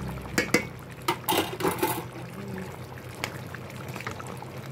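A few sharp clinks of a utensil against a stainless steel pot, then a short burst of liquid sloshing as a thick chicken and vegetable stew is stirred and turned.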